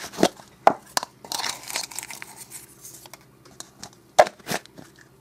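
Hands twisting open a large gold plastic egg: sharp plastic clicks and scraping as the halves work loose, with a stretch of rustling about a second in and two loud clicks near the end.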